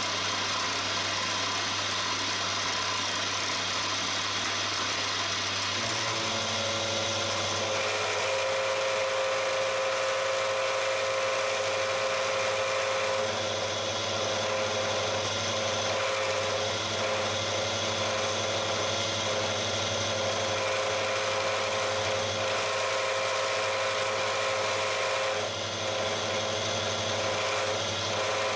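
Milling machine cutting with a 12 mm solid carbide end mill at 1600 rpm, taking a 2.5 mm deep pass along a block held in the vise. A steady motor hum is joined about six seconds in by a higher, steady cutting tone as the cutter bites. The tone wavers briefly near the end.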